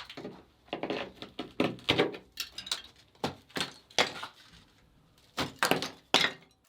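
Irregular sharp knocks and cracks of damaged old cement being broken off, about a dozen blows with short pauses between.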